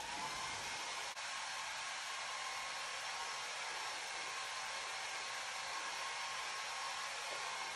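Hair dryer running steadily, blowing to dry freshly airbrushed paint: a continuous hiss with a faint whine, switching off near the end.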